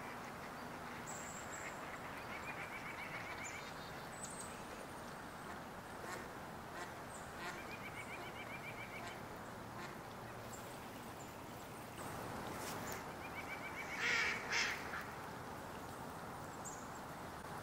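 Mallard ducks quacking in short runs of rapid notes, several times, with the loudest calls about three-quarters of the way through, over a steady background hiss.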